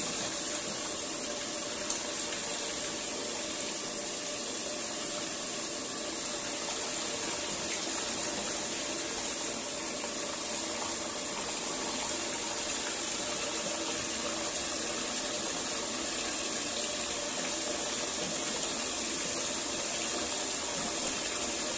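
Bathtub faucet running steadily, water pouring from the spout into the tub as long hair is rinsed under it.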